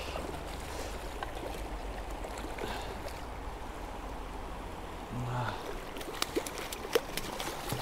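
Stream water running steadily, with a few sharp clicks in the last couple of seconds.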